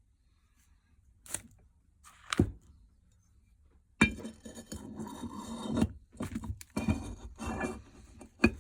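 Metal vice parts being handled: two separate knocks, then from about halfway a busy run of clinks, knocks and scraping.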